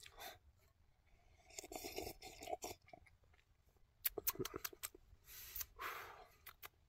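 Faint sipping from a soda, with small scattered clicks and scrapes.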